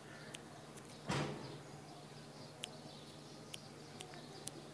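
Quiet background ambience with a low steady hum, a few scattered sharp ticks, and one brief rush of noise about a second in.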